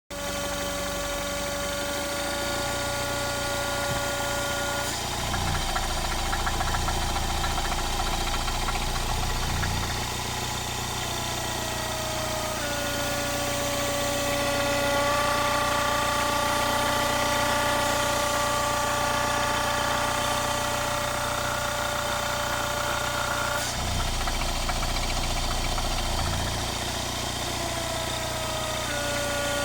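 Mini Cooper S R56's 1.6-litre turbocharged four-cylinder engine running at idle with an odd noise that the owner cannot identify. A steady whining tone shifts up and down in pitch several times while a low rumble comes and goes.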